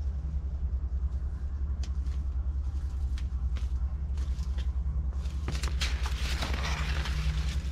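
Dry corn leaves and stalks rustling and crackling as someone walks through a corn field: scattered crackles at first, then dense brushing of leaves from about five seconds in. A steady low rumble runs underneath.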